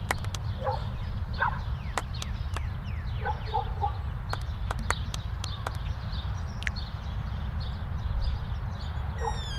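Faint outdoor background: a steady low rumble with scattered short chirps and clicks, like birds calling.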